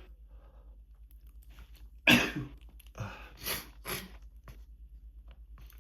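A person's dry little cough, part of an allergy flare: one sharp loud cough about two seconds in, then three smaller coughs about half a second apart.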